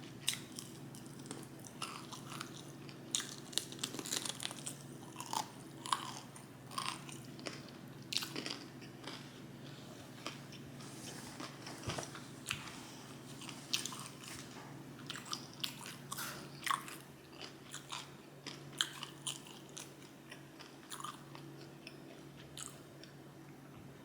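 Close-miked chewing and biting of someone eating, with many irregular sharp mouth clicks and smacks that thin out near the end. A steady low hum runs underneath.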